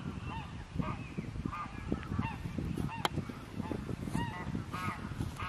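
A large flock of geese calling: many short honks overlap continuously, several each second, over a low rumble.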